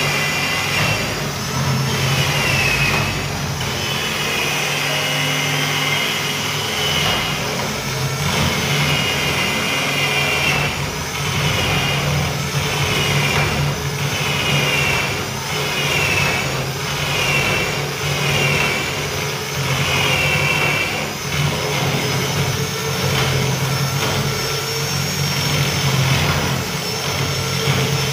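Electric drill running continuously, its bit boring into the edge of a wooden door through a lock mortising jig. The high whine repeatedly sags in pitch as the bit bites into the wood and climbs back, every second or two.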